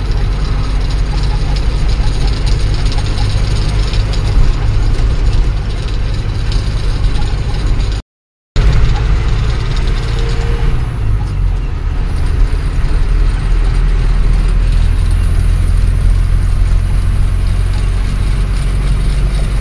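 Cab noise of an Ashok Leyland 1214 truck under way: a steady low diesel engine drone with road noise over it. The sound cuts out for about half a second around eight seconds in.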